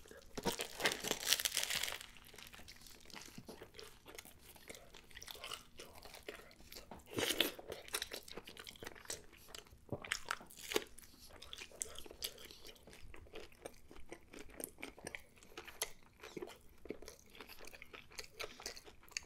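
A person biting into and chewing a big breakfast burger built on a lightly toasted everything bagel. A crunchy bite fills the first couple of seconds and another comes about seven seconds in, with wet chewing and small mouth clicks throughout.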